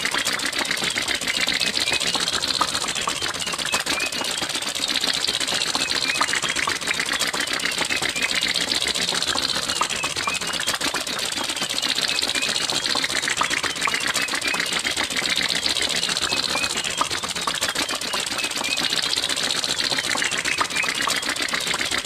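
Cartoon car sound effect: a small engine putt-putting in a fast, even rattling clatter, with a higher-pitched swell rising and fading about every three and a half seconds.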